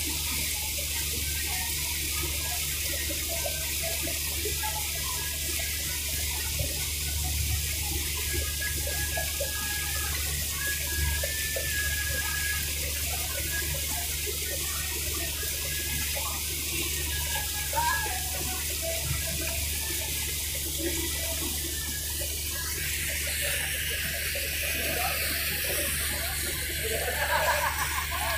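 Riverboat's engine droning steadily under the rush of water along the hull, with faint voices in the background.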